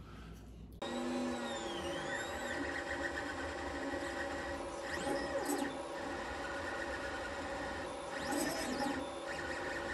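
Ender 3D printer running a print, starting abruptly under a second in: its stepper motors whine and hum in several steady tones, with the pitch now and then sweeping up and down as the print head changes speed.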